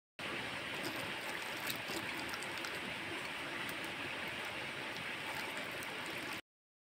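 Liquid boiling in a clay pot over an open wood fire: a steady bubbling hiss, with a few faint clicks.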